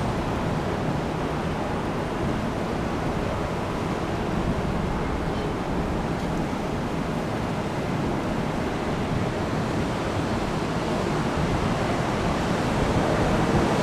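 Jet engines of an Airbus A319 airliner on landing approach: a steady rushing roar that swells a little near the end, mixed with wind on the microphone.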